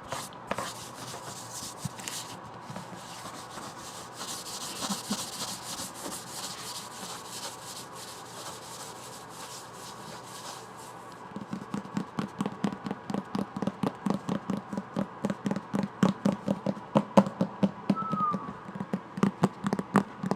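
Fingers rubbing and scratching across a book for about ten seconds, then quick, even tapping on the book, about four taps a second.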